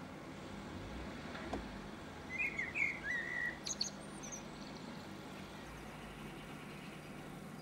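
A small bird chirps a few short notes about two to four seconds in, over a steady low hum of street traffic.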